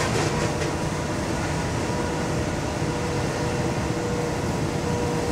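Steady driving noise inside a vehicle moving at motorway speed: engine drone and tyre and road rumble, with a faint steady hum.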